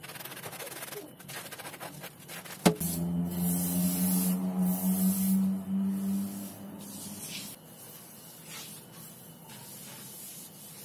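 Gas stove burner parts being washed in a stainless steel sink: a click, then about four seconds of running water with a steady hum. This fades about seven seconds in, leaving quieter handling and wiping of the burner cap.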